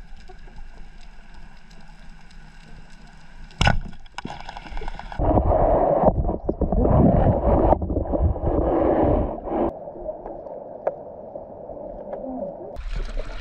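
Underwater sound picked up by a camera in its housing: a steady hum, one sharp click about four seconds in, then several seconds of gurgling, rushing water noise that dies down near the end.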